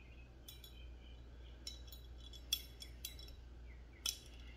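Sharp metallic clicks and clinks from a Glock slide and its small internal parts being handled during reassembly. There are about six, the loudest about halfway through and another near the end.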